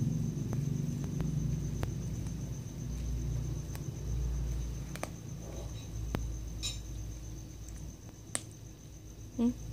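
Kitten chewing on a chicken bone: scattered small clicks and crunches of teeth on bone, over a low rumble of handling noise.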